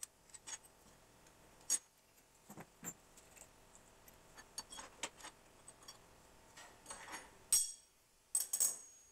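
Scattered metal clicks and clinks from wrenches working the collet nut of a router table's bit holder while the router bit is changed, and from the wrenches being set down on the table, with the loudest clank about seven and a half seconds in.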